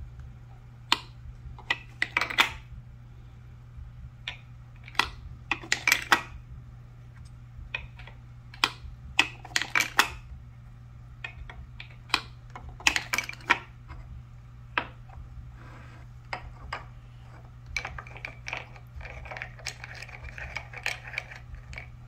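Wooden toy coffee-maker pieces clicking and knocking as they are handled: coffee pods, cups and spoons set down on the table and fitted into the toy machine, in scattered clusters of sharp taps. Near the end come quicker, lighter taps with a scraping rub, like a toy spoon stirring in a toy cup.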